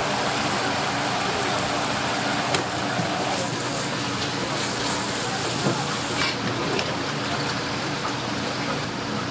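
Water spraying hard from a spray-nozzle faucet onto squid in a wire basket and the cutting board, a steady hiss that cuts off about six seconds in. A couple of light knocks come from handling.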